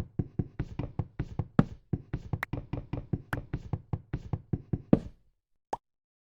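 Rapid series of knocks, about five a second, that stops suddenly about five seconds in; a single faint click follows shortly after.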